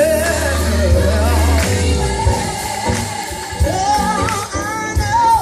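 Song with a sung vocal line held and bent in pitch with vibrato, over bass and a steady beat of percussion.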